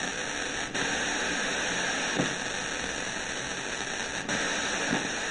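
Steady FM radio static from the iBell Castor FM660BT's speakers: an even hiss while the set is tuned between stations.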